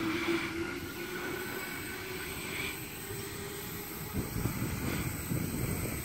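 Waratah double-deck electric train pulling away, its motor hum fading within the first second, leaving a steady low rumble that grows rougher about four seconds in.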